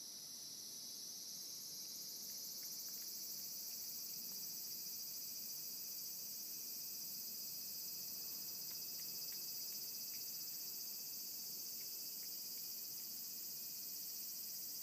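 Steady high-pitched insect chorus, with a few faint small clicks of a cat eating wet canned food off a plate.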